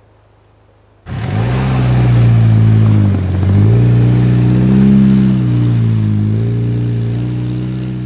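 Jeep Wrangler JL engine with a straight-through exhaust, revving hard under load. It comes in suddenly about a second in and rises and falls in pitch several times, with a hiss of tyres churning through snow.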